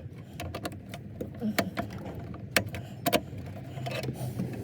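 Parts and tools being handled while fitting a car heater: a few sharp clicks and knocks, the loudest about halfway through, over a steady low hum.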